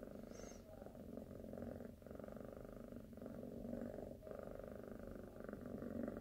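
A kitten purring steadily and softly, with a short dip about once a second as she breathes.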